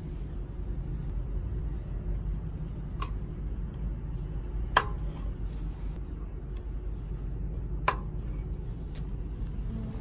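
Small plastic star spoke beads being snapped onto a bicycle wheel's spokes, giving three sharp clicks, the loudest about halfway through. Under them runs a steady low rumble.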